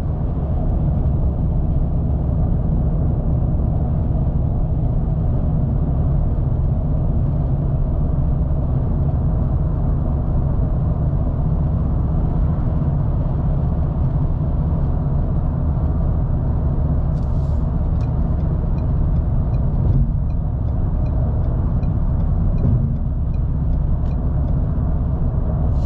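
Steady road and engine noise from a car at highway speed, heard inside the cabin: a constant low rumble with no change in pitch.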